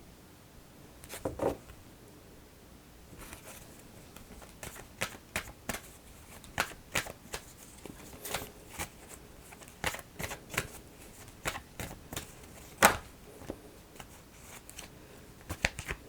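Oracle cards being shuffled and handled: an irregular string of light card snaps and taps, with one sharper snap near the end.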